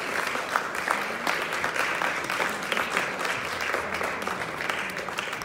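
Audience applauding: many hands clapping, slowly dying down toward the end.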